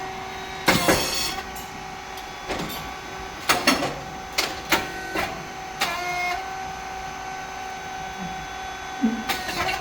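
Rice cake popping machine running: a steady hum from its motor and hydraulic pump, with one loud hissing burst about a second in as a mould releases, then several shorter clicks and hisses from the cylinder and valves. The hum steps up in pitch a little past the middle.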